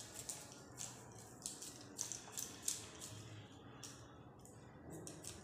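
Faint, irregular soft squishes and light clicks of oiled dough being pressed by hand into the steel barrel of a sev maker.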